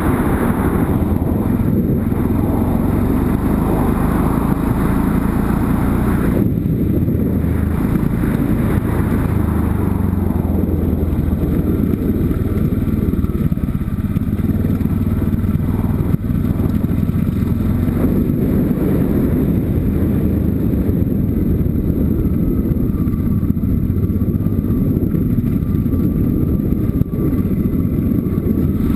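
Yamaha Ténéré motorcycle riding a gravel dirt track: the engine runs steadily under a heavy rush of wind and road noise.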